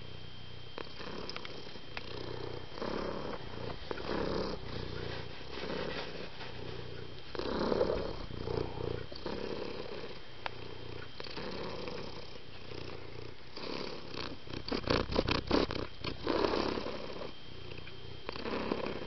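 Domestic cat purring up close, a low rumble that swells and fades about every second and a half. A quick run of sharp clicks comes about fifteen seconds in.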